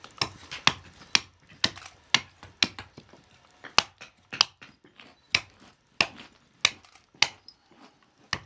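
Small hand adze chopping into a wooden spoon blank braced on a wooden block, giving sharp wooden chops at about two a second as the blank is roughed out.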